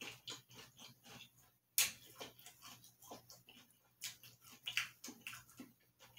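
Close-up chewing of a crispy rice cereal treat: irregular crunches and wet mouth clicks, the sharpest crunch about two seconds in.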